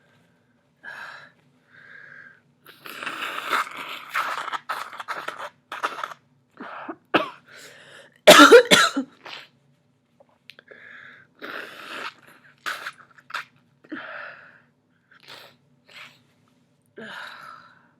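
A person sniffling and coughing in a run of short, noisy bursts, with the loudest outburst a little past the middle.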